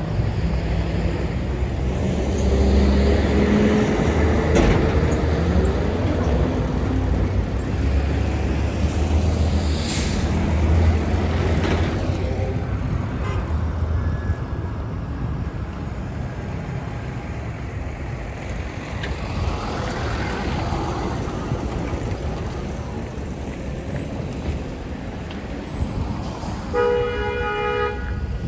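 Road traffic passing, with a heavy vehicle's engine rumbling by through the first half, a brief hiss of air about ten seconds in, and a short horn toot near the end.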